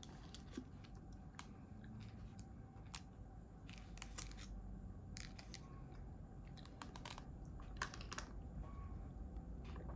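Faint handling sounds: a dozen or so small, sharp clicks and ticks scattered irregularly over a low steady hum.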